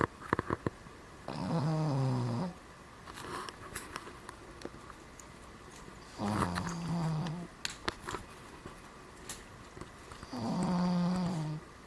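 A Cavalier King Charles Spaniel snoring in its sleep: three drawn-out, pitched snores about a second long each, roughly four to five seconds apart.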